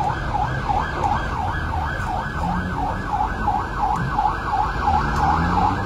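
Rescue vehicle's electronic siren in fast yelp mode, a wail rising and falling about four times a second, heard from inside a moving van's cab with engine and road rumble underneath.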